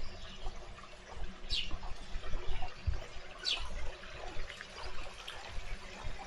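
Clear spring water flowing and trickling, with many small splashes. Two short bird calls falling in pitch come about two seconds apart.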